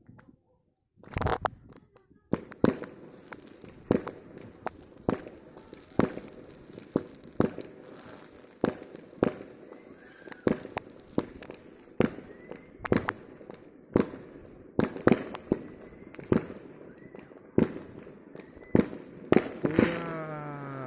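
Fireworks going off: a long run of sharp bangs, roughly one or two a second, after a brief quiet start. Near the end a falling tone with several pitches sounds over the bangs.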